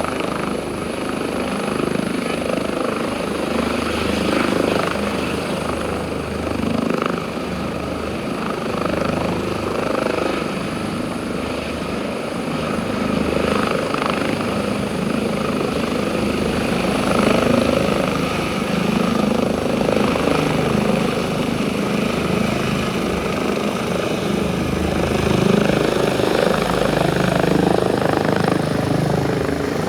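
Airbus H145 twin-turbine helicopter running at power, its engines and rotor giving a steady, loud sound with a pulsing low throb.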